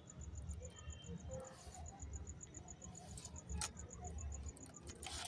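Faint, sparse clicks of laptop keys being pressed, a few single clicks a second or so apart, as the keyboard is tested after its connector repair, over low handling rumble and a faint steady high-pitched pulsing.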